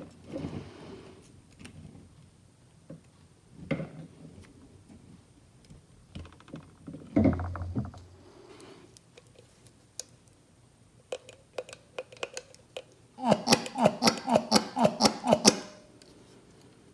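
Metal parts of a 1951 Ford flathead fuel pump being handled and fitted by hand: scattered clicks and knocks, then near the end a quick run of sharp clicks, about six a second for two seconds.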